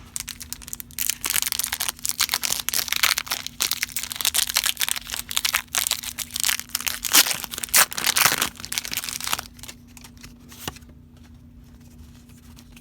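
Foil wrapper of a Pokémon trading card booster pack being torn open and crinkled: dense crackling for about eight seconds, then dying down to a few faint ticks.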